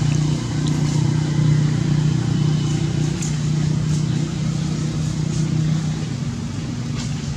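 A steady low motor hum, which fades about six seconds in, with a few faint clicks.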